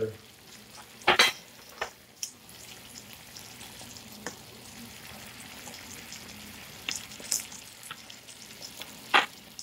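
Food frying in a pan with a steady sizzle, broken by several sharp clicks and knocks of spice jars being picked up and set down on a stone countertop.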